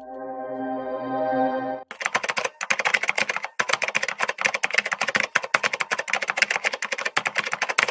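A short swelling musical chord for about two seconds, the disclaimer sting. It then gives way to a computer-keyboard typing sound effect: rapid, dense key clicks.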